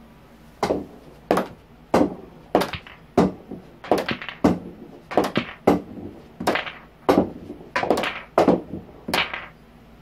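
Pool balls and cue on a pool table: a run of about fifteen sharp clacks and knocks, roughly one every half second to second, each with a short ring.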